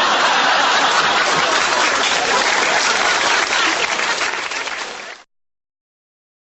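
Crowd applauding: steady, dense clapping that cuts off suddenly about five seconds in.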